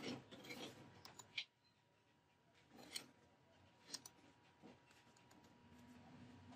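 A few quiet, sharp computer-mouse button clicks, a second or so apart, over a faint steady tone.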